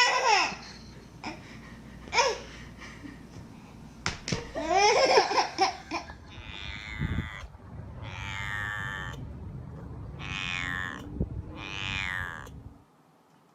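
A baby laughing in short bursts, then four long drawn-out vocal calls of about a second each.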